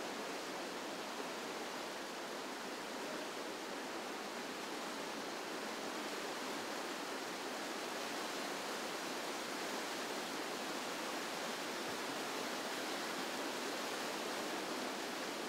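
Whitewater river rapids rushing: a steady, unbroken rush of water.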